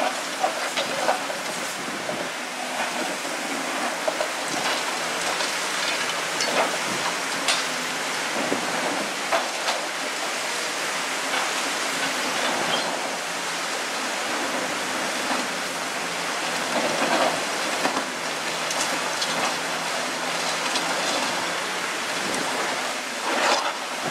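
Caterpillar 345C L long-reach excavator's diesel engine running under load while its demolition jaws crush the concrete top of a silo. Repeated sharp cracks and a steady rattle of breaking, falling concrete run throughout, with a louder burst just before the end.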